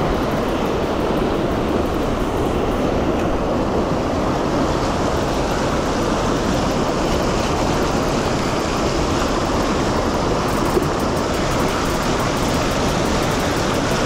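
Mountain stream water rushing steadily.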